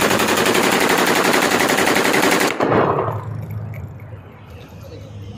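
Kalashnikov-pattern (AK-47 type) assault rifle firing a long fully automatic burst into the air, which stops about two and a half seconds in, followed by a short second burst.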